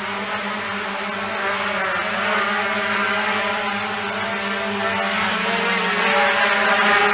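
Small quadcopter's electric motors and propellers buzzing in flight, a steady multi-tone hum whose pitch wavers as it manoeuvres, growing louder as it comes closer.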